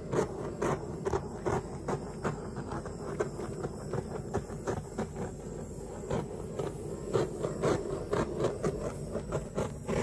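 Handheld butane torch running over freshly poured epoxy resin to pop surface bubbles, with a fast, irregular run of small crackles and clicks.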